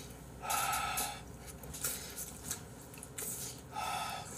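Noodles slurped from a bowl twice, each slurp just under a second long, the second near the end.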